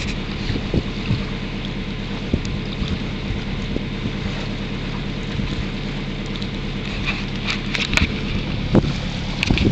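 Nelson 34 motor cruiser's engine running steadily under way, a low even drone, with wind and water noise on top. Near the end there are a few sharp knocks and rustles of the camera being handled.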